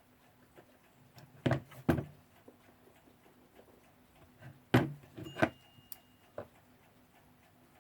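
Sharp knocks and clicks of small tools and clock parts being handled and set down on a workbench during oiling: two close together about one and a half seconds in, a cluster of three around five seconds, and a lighter one at about six and a half.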